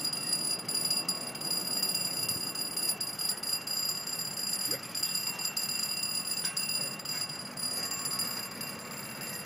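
Level-crossing warning signal sounding steadily as a continuous high tone, over a background of distant rail-yard and street noise.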